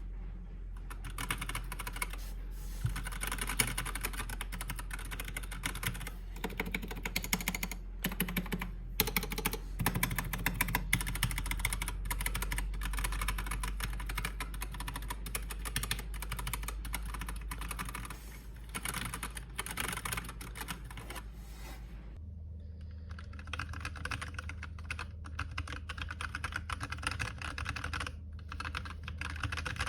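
Fast, continuous typing on a Keychron K6 mechanical keyboard with Gateron Brown tactile switches, a dense run of key clacks. About 22 seconds in the recording cuts to a second take with a different background hum, and the typing goes on.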